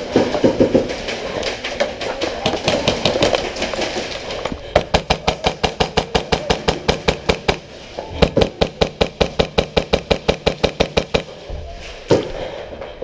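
Airsoft guns firing at close quarters: scattered rapid shots, then two long, even strings of rapid shots about five and eight seconds in, each lasting about three seconds.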